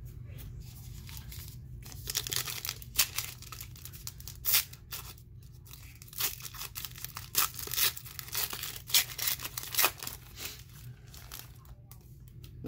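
A foil trading-card pack wrapper being torn open by hand: a run of sharp rips and crinkling, starting about two seconds in and loudest through the middle, easing off near the end.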